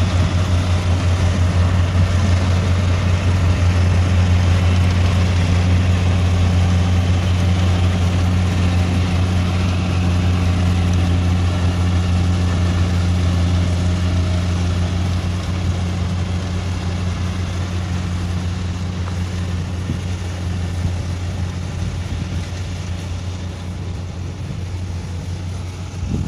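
Kubota rice combine harvester's diesel engine running steadily at working speed as it cuts rice, a constant low drone. It grows fainter through the second half as the machine moves away.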